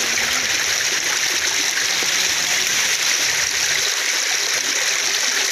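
A river rushing steadily.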